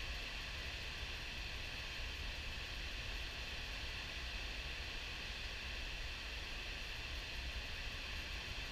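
High-flow river water pouring over a diversion dam's spillway gates into the pool below: a steady rushing hiss over a low rumble, unchanging throughout.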